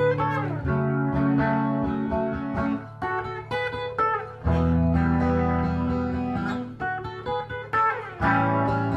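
Instrumental guitar intro of an indie rock song: guitar chords ring over low bass notes that change about every two seconds, with no singing.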